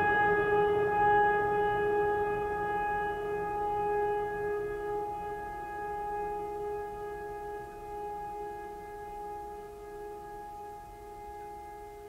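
Ambient music: a single struck, bell-like tone ringing on with several steady overtones and slowly fading.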